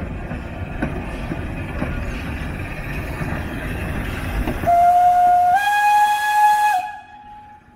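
Austro-Hungarian 0-8-0 steam locomotive 414.096 hissing steam at its cylinders as it moves slowly. Its steam whistle then blows for about two seconds, stepping up in pitch partway through, and cuts off.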